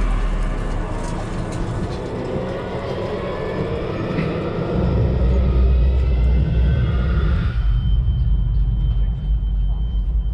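Loud drum corps ensemble music picked up by a head-mounted camera mic, dominated by a heavy low rumble. About seven or eight seconds in the upper sound drops away, leaving the low rumble and a thin steady high tone.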